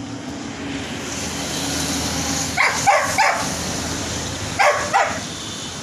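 Dog barking five times, three quick barks and then two more, over the hum of a vehicle passing on the road.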